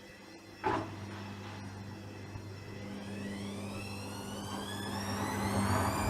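Hoover washing machine starting a spin with an unbalanced bedding load: a single sharp knock about two-thirds of a second in, then the motor's whine rising steadily in pitch and getting louder as the drum speeds up.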